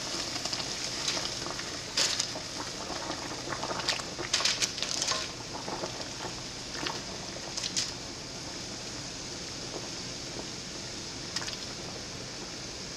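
Pot of water at a rolling boil, giving a steady bubbling hiss, with a few short splashes about 2, 4 to 5 and 8 seconds in as bagels are lowered in with a slotted spoon.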